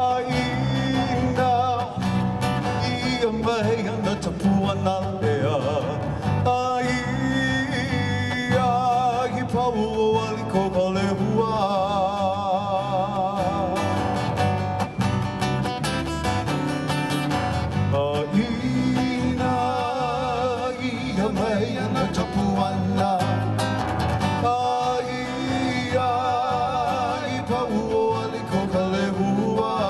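Hawaiian music: strummed guitar with a sung melody that has a wide vibrato.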